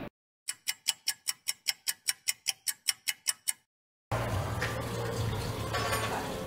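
Ticking-clock sound effect laid over dead silence, about six quick, even ticks a second, marking a skipped stretch. About four seconds in, the room's own background noise cuts back in, with a few light knocks.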